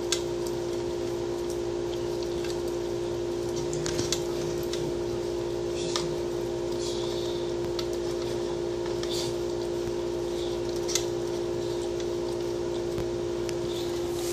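Welsh corgi licking an empty plastic food bowl, with scattered clicks and soft scrapes of tongue and muzzle against the bowl, over a steady hum.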